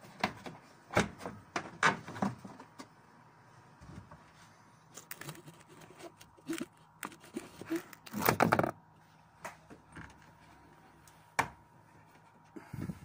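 Handling noise from pulling the felt trunk side lining of a Citroën C-Elysee off its plastic push clips: a few sharp knocks and clicks early, then a longer, louder scraping rustle about eight seconds in, and another click near the end.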